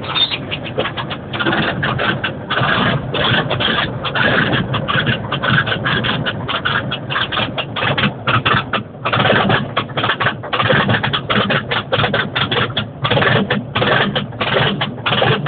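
Caterpillar compactor's diesel engine running with a rapid, uneven clatter and a few brief dips, just after a cold start on glow-plug preheat alone with no starting fluid.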